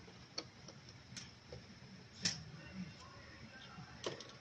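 Scattered light clicks and taps of hands handling wires, a connector and the metal chassis inside an opened LCD projector; the loudest knock comes a little past two seconds in.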